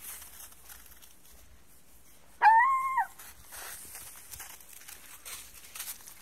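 A dog gives one loud, drawn-out high yelp about two and a half seconds in, rising, holding and then dropping in pitch.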